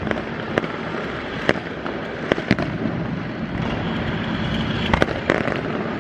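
Aerial fireworks display going off: a steady, dense din of many small reports, with sharp single bangs standing out at irregular moments, several close together about five seconds in.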